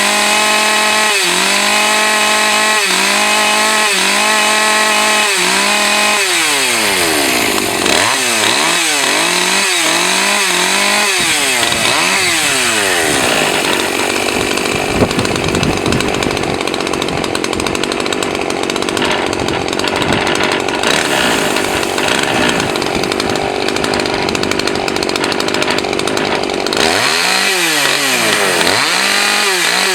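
Husqvarna 543 XPG two-stroke chainsaw revved in short blips about once a second, then revved faster and held at full throttle for about fifteen seconds, cutting through a pine log, before being blipped again near the end. The owner thinks its carburetor is set a little low on the high-speed side.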